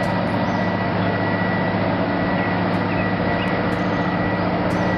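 Truck engine running steadily: an even low hum with a faint high whine and no changes in speed.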